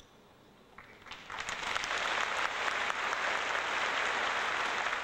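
Audience applauding: after a brief quiet lull with a couple of sharp clicks, the clapping swells up a little over a second in and holds steady.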